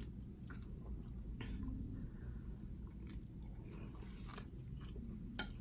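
A person chewing food close to the microphone, with a few faint, scattered mouth clicks.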